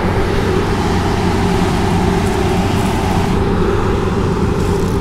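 Combine harvester running steadily in the field, a constant engine and machinery hum with a hiss of working parts over it.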